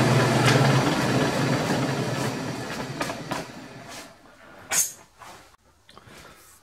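Milling machine's indexable face mill cutting a metal plate, then the spindle is switched off under a second in and runs down, the noise fading over about three seconds. A few light clicks follow, with one sharp click about five seconds in.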